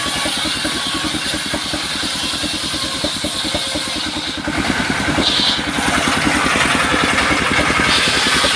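Engine running with a fast, even firing beat. It gets a little louder and harsher about halfway through.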